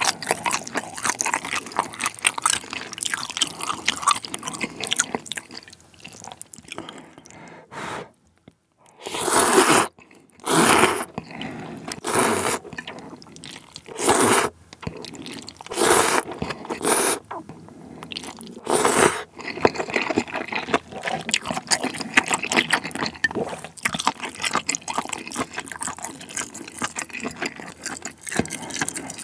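Close-miked eating: wet chewing clicks, then from about nine seconds in a run of about seven short, loud slurps of jjamppong noodles, then more chewing of the noodles.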